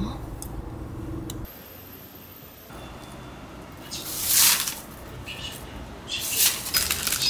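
A car engine runs with a low steady rumble inside the cabin and cuts off about a second and a half in. After that, a paper bag rustles loudly about four seconds in and again in several bursts near the end as sugar-coated twisted doughnuts are dropped into it with tongs.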